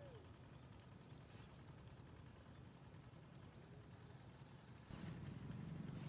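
Faint outdoor ambience: an insect chirping high-pitched in a rapid, even pulse, with a soft whistled call about three and a half seconds in. About five seconds in, the background turns louder with a low rumble.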